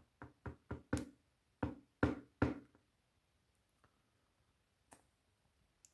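Sharp, short knocks and taps on a Zeiss Ikon pin-tumbler lock cylinder as its pin springs are worked out of the housing. About eight come in quick succession, then one more a few seconds later.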